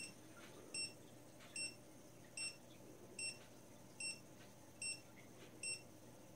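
Dogtrace d-fence 1001 electronic dog-fence collar receiver beeping: short high electronic beeps, about one every 0.8 s, eight in all. Each beep goes with an electric correction pulse, because the collar is sitting inside the boundary wire loop in the correction zone.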